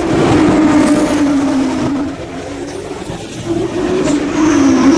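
V6 engines of single-seater racing cars at high revs on a street circuit. One car's engine is loud for the first two seconds and then fades, and another car comes up loud from about three and a half seconds.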